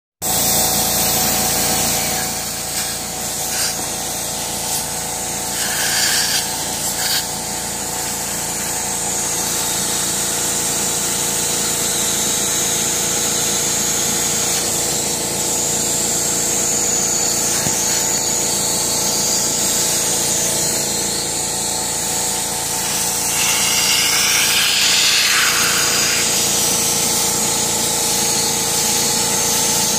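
Shop vac driving a home-made bucket extractor, sucking water and air through a clear upholstery tool drawn across a fabric car seat: a steady motor whine under a rushing hiss of suction. It gets louder for a few seconds near the end.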